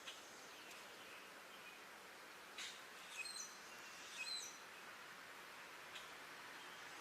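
Faint chirps from small birds: a few short, high calls about two and a half seconds in and again around three and four seconds, over a steady faint hiss.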